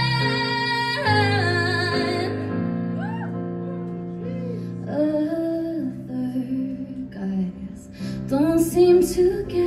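A woman singing live over electronic keyboard chords: a long held note that ends about a second in and fades out, then sustained keyboard notes under softer singing that grows louder near the end.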